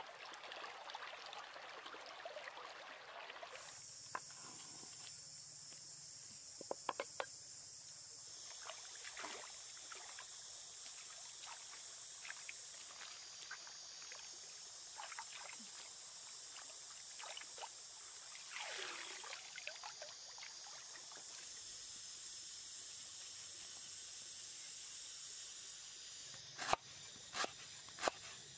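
A forest stream running over stones, then water sloshing and small splashes as chillies and lemongrass are washed in a woven bamboo basket, over a steady high hiss. Near the end a knife chops through lemongrass stalks on a wooden board in sharp strokes, about two a second, the loudest sounds here.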